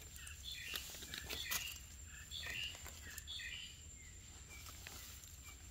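Faint bird chirps, short and scattered, over light rustling and crackling of dry leaf litter and twigs as someone moves and crouches on the forest floor.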